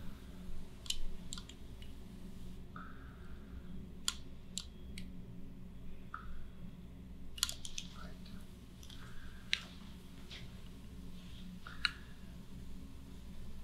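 Scattered small, sharp clicks at irregular intervals and a few brief soft rustles, over a steady low hum.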